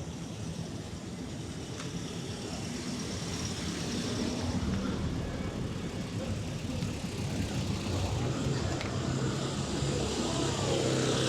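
City road traffic: a steady rumble of cars, with a vehicle's engine growing steadily louder as it approaches and passing close near the end.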